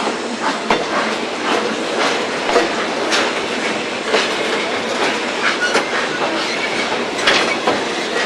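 Steel railway car rolling slowly along the track: the wheels clatter on the rails and give irregular clicks and knocks over a steady running noise.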